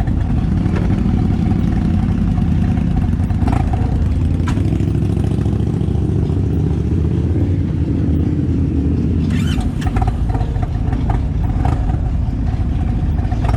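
Motorcycle engine running loudly while riding, its pitch climbing for a few seconds around the middle as it accelerates.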